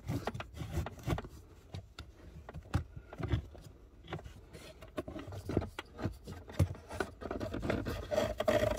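Cabin air filter being slid out of its plastic housing under the dash of a BMW F10 535i by hand, its frame scraping and rubbing against the housing with a run of irregular clicks and scrapes.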